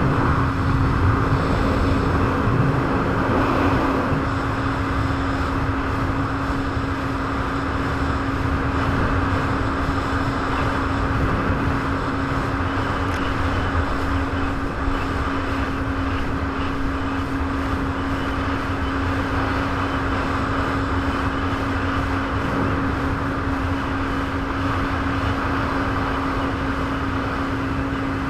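Jet ski engine running at a steady speed, one constant droning tone that holds its pitch, over a steady rushing noise.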